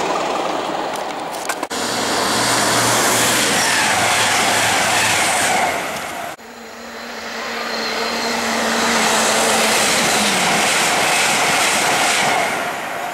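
Trains rushing past at speed, with a loud steady rush of air and wheels that cuts off abruptly twice. In the last part an LNER Azuma high-speed train passes close, and a humming tone in its sound drops in pitch about ten seconds in.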